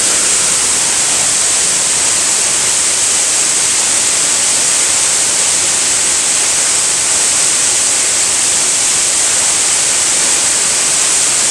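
Waterfall in spate after heavy rain, a loud steady roar of falling water.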